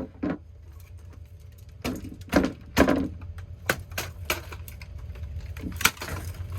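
Hammer hitting a cheap plastic alarm clock radio: a few heavy knocks about two to three seconds in, then lighter clicks and clatter of broken plastic.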